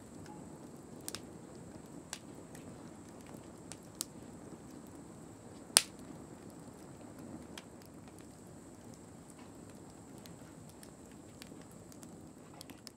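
Split logs burning in the firebox of a wood-fired earthenware kiln: a steady low rush of flame with scattered sharp crackles and pops from the wood, the loudest pop about six seconds in.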